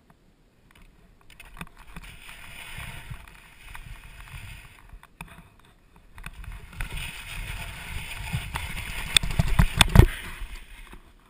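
Skis sliding and scraping over snow, louder in the second half, ending in a fall into the snow with two sharp knocks, the loudest about ten seconds in.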